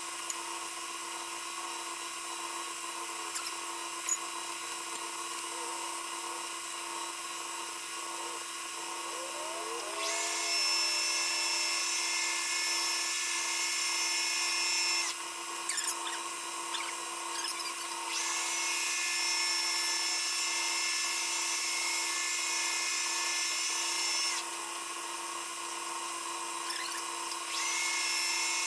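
Metal lathe running with a steady machine whine while a round part is turned to size. Three times, for several seconds at a stretch, it grows louder with an added high-pitched whine.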